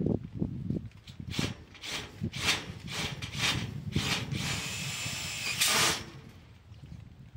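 A run of short, sharp knocks about half a second apart, then a power drill whirring steadily for about two seconds before stopping abruptly, as work is done on a steel greenhouse pipe frame.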